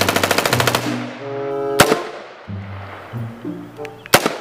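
Automatic-rifle gunfire for a toy M4: a fast burst of shots that stops about a second in, then two single shots, over background music with held notes.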